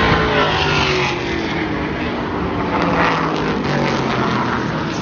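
A field of 8-cylinder street stock race cars running at speed on the track, engine notes gliding down in pitch as cars go by in the first second.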